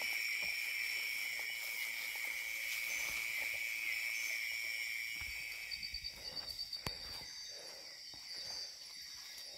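Night insects in tropical forest calling in a steady, continuous high drone, two pitches layered; the lower one fades out about six seconds in. Faint rustles and knocks of movement through the undergrowth.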